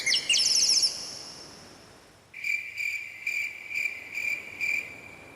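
Bird chirps fade out, then a cricket chirping sound effect begins about two seconds in: a high trill pulsing about two to three times a second, the meme cue for an awkward silence.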